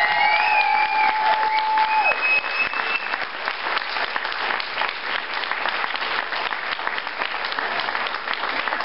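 Audience applauding steadily in a hall after a song, with a few long calls from the crowd over the clapping in the first three seconds.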